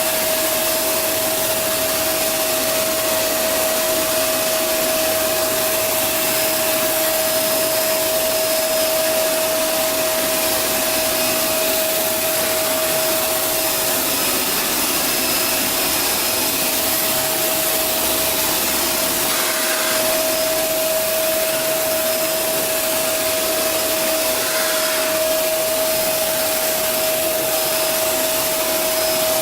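Shark Rotator Powered Lift-Away vacuum running at full suction with its mini motorized pet hair brush working fabric upholstery: a steady rushing hiss with a constant whine, the whine weakening for a few seconds around the middle.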